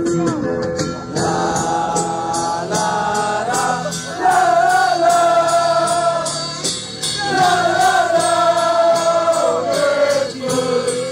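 A group of football supporters singing a chant together in long drawn-out notes, to a quick steady beat.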